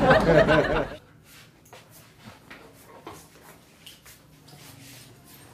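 A man's voice for about the first second, then a quiet room with faint scattered clicks and a low hum.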